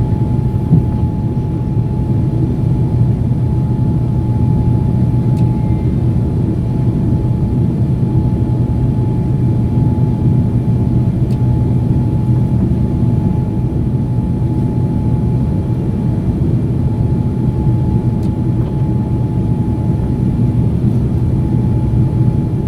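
Boeing 787 airliner's jet engines and rushing air: a loud, unchanging drone with a thin steady whine above it.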